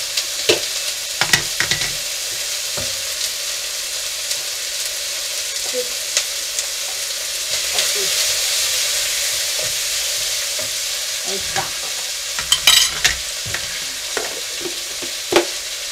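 Chopped onion and bay leaves sizzling in a pan of hot olive oil with lard and margarine. The steady frying hiss swells a little midway. A utensil clicks against the pan a few times, with a short cluster of knocks near the end.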